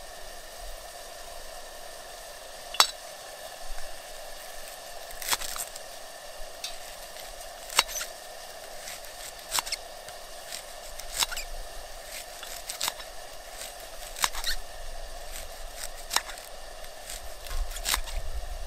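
Knife cutting slices from a leek, the blade striking the metal plate under it with a sharp click at the end of each cut, about every one and a half to two seconds.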